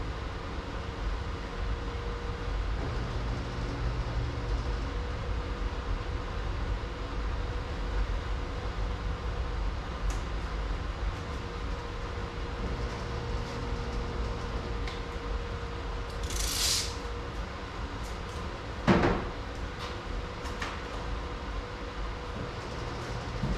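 Steady low hum and rumble of a running machine. A short hiss comes about sixteen seconds in, and a single thump, the loudest sound, follows a little over two seconds later.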